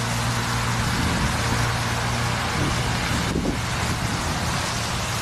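Steady motor-like noise with a low, even hum, of the kind that road traffic or a running engine makes.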